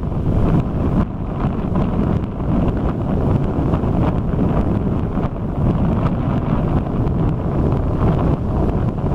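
Strong wind buffeting the microphone, over the steady wash of heavy surf breaking on the beach.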